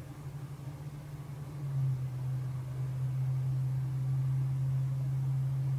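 A steady low mechanical hum, like a motor running, that grows louder and steadier about two seconds in.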